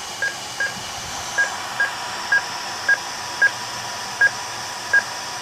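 DTMF touch-tones dialling a phone number: nine short beeps keyed at an uneven pace, over a faint steady tone.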